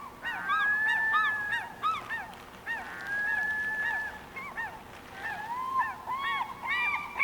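Several gulls calling: short, arched squawks overlapping with longer drawn-out cries, building near the end into a fast, louder run of calls.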